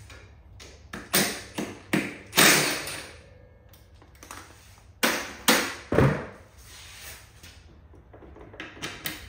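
Cordless impact driver run in short bursts, in two groups, as it spins out a rear suspension bolt on a Sur-Ron electric dirt bike, with a heavier thud about six seconds in.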